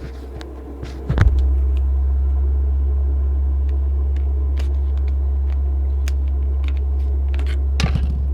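Scattered small plastic clicks and snaps as the back cover of a Nokia Lumia 625 is prised off by hand, over a loud steady low rumble that starts abruptly about a second in.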